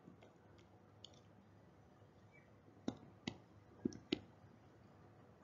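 Stylus tapping and writing on a tablet screen: a few faint ticks, then four sharper clicks in the second half, in two close pairs.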